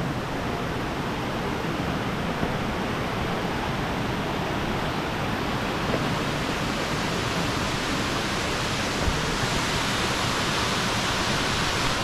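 Steady rush of falling water from a waterfall and the small cascades of the stream below it, a little louder and brighter toward the end.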